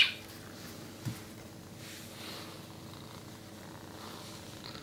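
Domestic cat purring steadily and faintly, with a brief soft knock about a second in.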